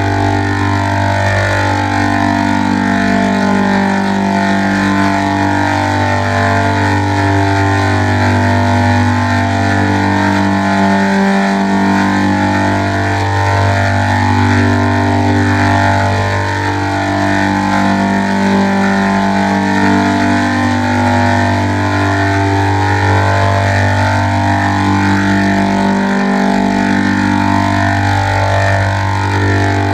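Music through an "old school" audio effect: a melody of stepping notes over a sustained bass note, which drops out briefly twice.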